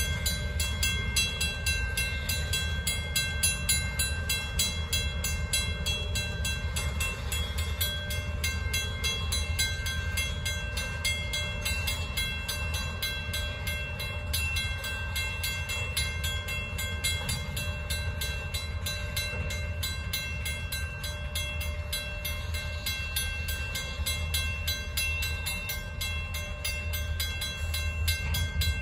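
Freight cars, covered hoppers then tank cars, rolling steadily through a grade crossing with a low, even rumble of wheels on rail. A crossing bell rings steadily over it.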